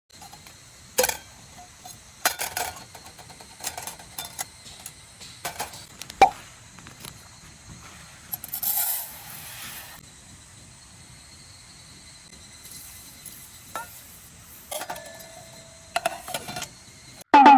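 Small hard objects being handled: scattered clicks and light metallic clinks like camp cookware or dishes knocking together, with a brief hiss about nine seconds in and a short ringing clink around fifteen seconds.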